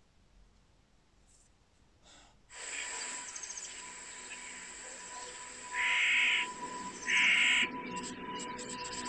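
Near silence, then about two and a half seconds in a steady soundtrack bed cuts in, with two louder short calls a second apart near the middle.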